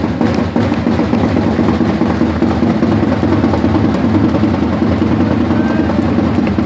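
Ice hockey arena crowd applauding and cheering, with drums and music mixed in; a dense, loud, unbroken wall of sound full of sharp claps and beats.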